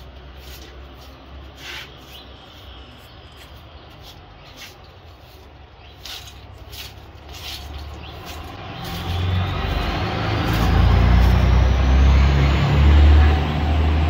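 Faint scrapes of a broom on concrete. Then, from about nine seconds in, a motor vehicle's low engine rumble swells and grows loud, with a whine that rises steadily in pitch.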